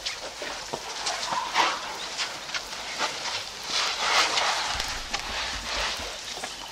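Elephant herd drinking at a waterhole: water splashing and sloshing from their trunks, with scattered knocks and clicks and a couple of longer swishes, about a second and a half in and again about four seconds in.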